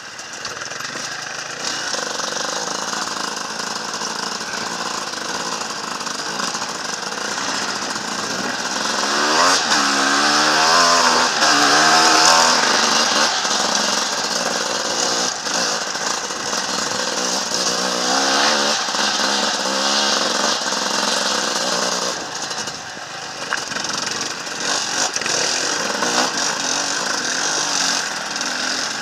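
Enduro dirt bike engine running under load on a rocky trail, revving up and dropping back again and again as the throttle is worked; a run of quick rises and falls in pitch comes about a third of the way in, and another shorter one past the middle.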